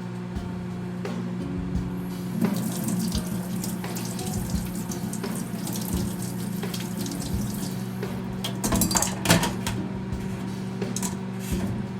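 Kitchen tap running into a sink with splashing, loudest a little before the end, over steady background music.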